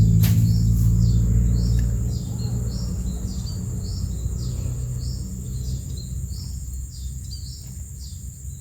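Outdoor pond-side wildlife: short high chirps repeating about twice a second over a steady high insect-like drone. A low rumble fades about two seconds in, and there is one sharp click near the start.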